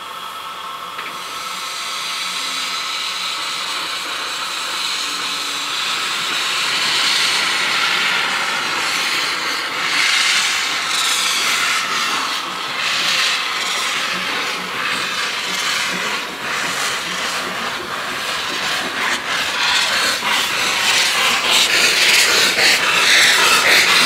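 Peckett 0-4-0 saddle tank steam locomotive starting away: a loud hiss of steam from its open cylinder drain cocks, with exhaust beats from the chimney that start about a third of the way in and come quicker as it gathers speed. The whole sound grows louder toward the end.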